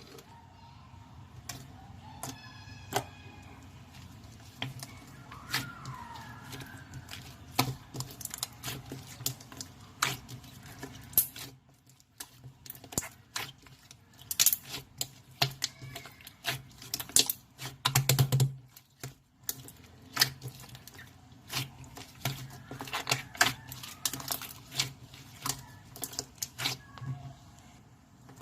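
A long run of irregular sharp clicks and taps, unevenly spaced, some louder than others.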